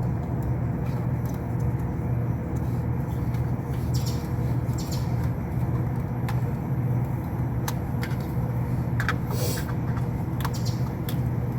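Steady mechanical hum of running HVAC equipment, with scattered small clicks and rattles of connectors and parts being handled, several of them clustered a little after the middle.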